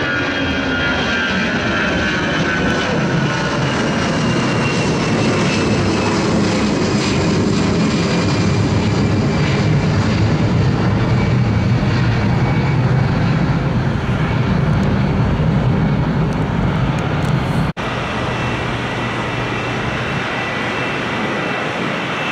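Airbus A320-family twin-jet airliner climbing out after takeoff: a loud jet roar with a whining tone that slowly falls in pitch as it passes over and away, the low rumble swelling. About three-quarters of the way through, the sound cuts off abruptly and a second A320-family jet takes over, its whine steadier.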